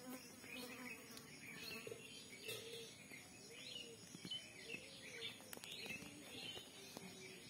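Faint birdsong from several birds: quick high chirps, with a short, low, arching call repeated about once a second.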